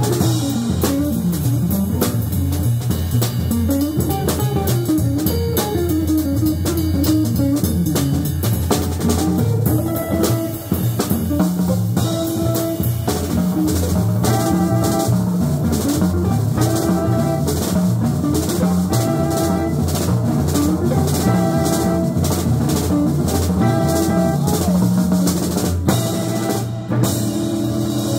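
Live jazz quartet playing a blues: saxophone and hollow-body electric guitar over upright bass and a drum kit with busy cymbals. From about halfway through, a short figure repeats again and again.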